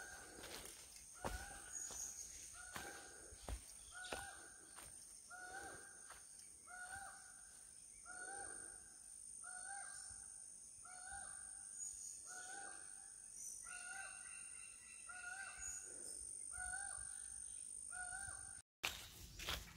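A bird calling over and over, a harsh two-part call about once every second and a bit, some fifteen times in a row, over a steady high-pitched whine. The sound cuts off abruptly near the end.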